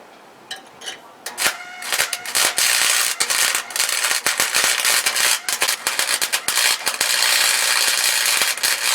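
Welding arc on sheet-steel floor panels, crackling and sizzling steadily for about eight seconds. It starts about a second in, after a few faint clicks, and cuts off sharply at the end.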